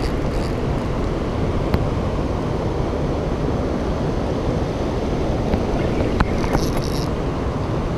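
Steady wind rumble on the microphone, with a couple of sharp clicks, one about two seconds in and another about six seconds in.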